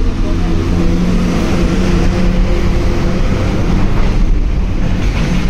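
Steady low rumble of motor vehicle traffic, with a faint hum of engines.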